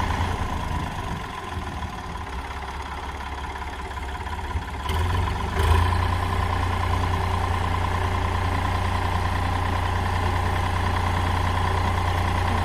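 Tractor engine running with a steady low drone. It eases off for a few seconds, then there are two knocks about five seconds in, and it runs on steadily and a little louder.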